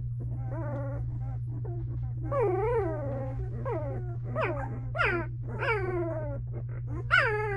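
Two-week-old Belgian Malinois puppies whimpering and squealing in a string of short, wavering cries that grow louder and higher toward the end, over a steady low hum.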